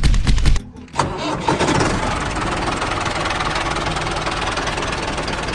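An engine cranking with rapid loud thuds, a brief pause, then catching about a second in and settling into steady running.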